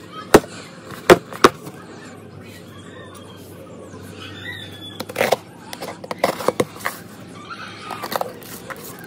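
Handling of a diecast toy car's box and packaging: three sharp clicks or knocks in the first second and a half, then rustling with faint squeaky rubbing, and more clusters of clicks and scrapes near the middle and end.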